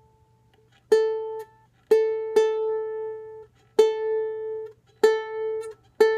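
A six-string koa tenor ukulele with one string plucked six times at the same pitch, each note ringing briefly and fading, as it is being tuned; its new strings are still stretching and drifting flat.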